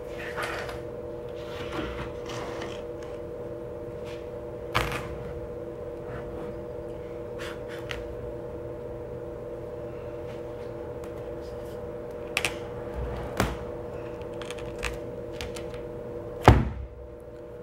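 A heavy concrete longboard press being shifted and set down onto a glued wooden board: scattered knocks and thuds, the loudest one near the end, over a steady background hum.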